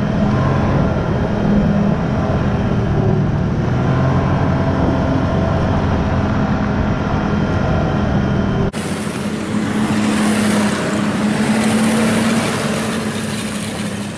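Snowmobile engine running steadily under way, with a strong steady drone. About nine seconds in, the sound changes abruptly to a lighter engine drone with more hiss and less low rumble.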